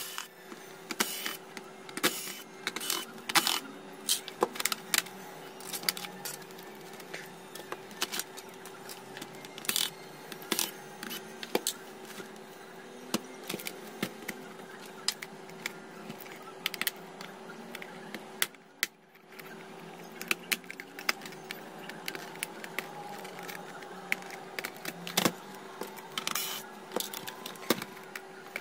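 Plastic clicks, taps and knocks from a Samsung Sens R522 laptop being taken apart by hand: screws worked out of the bottom case, the machine turned over and the keyboard pressed to release it from its clips. A faint steady hum sits under the clicks.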